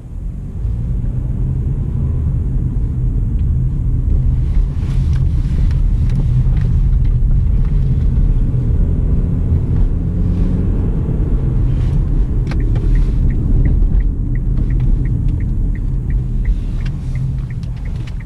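Steady low road-and-engine rumble inside the cabin of a four-cylinder 2011 Kia Sportage being driven, getting sharply louder about half a second in. From about twelve seconds in, the turn-signal relay ticks about three times a second for some five seconds. No squeal or grinding is heard from the freshly replaced front brake pads on this test drive.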